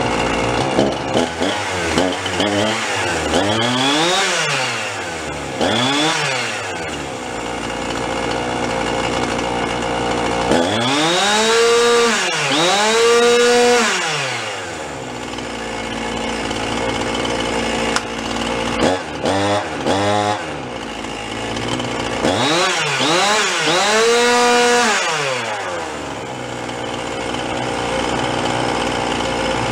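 Husqvarna two-stroke chainsaw engine catching on the pull and running, idling between repeated throttle revs that rise and fall back down. The throttle returns to idle after each rev: the saw now runs right after its repair.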